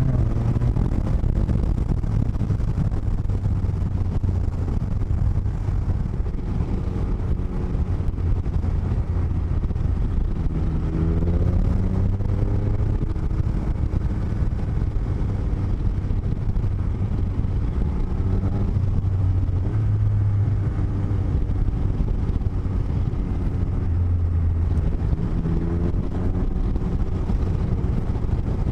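A motorcycle being ridden, heard through microphones in the helmet's cheek lining: a steady loud low rumble, with the engine note rising several times as the revs climb and drop.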